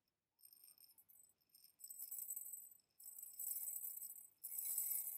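Dry rice poured from a glass cup into a glass bowl, a high hissing patter of grains on glass used to imitate rain. It starts about two seconds in and comes in three spells with short breaks between.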